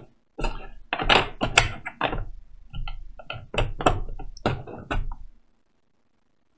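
Board-game box contents being handled: a run of irregular knocks and thunks of cardboard and plastic insert trays, which cuts off suddenly about five seconds in.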